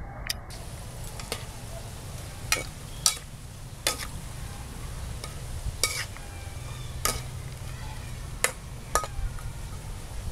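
A metal spatula stirring pork and green tomato slices in a metal wok, giving about nine sharp, irregularly spaced clinks and scrapes against the pan over a sizzle from the frying food.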